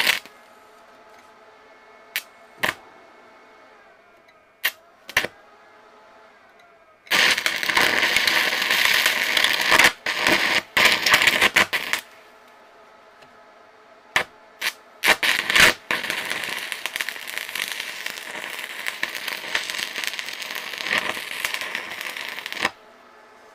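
Stick-welding arc on steel rebar and plate: the electrode is struck with several short sharp cracks, then crackles steadily for about five seconds. After a few more strikes it crackles for about seven seconds more and cuts off abruptly near the end.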